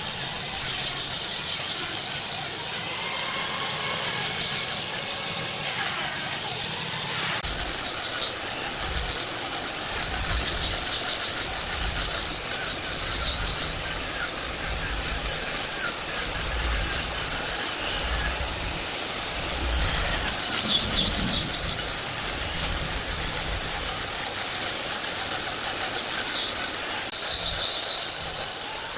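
A heavy machine's engine running, its low rumble pulsing unevenly, with high metallic squeals coming and going.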